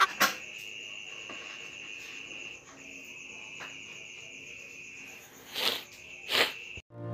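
A cricket trilling steadily on one high note, with a brief break a little before the middle. Two short rustling noises sound near the end, louder than the trill.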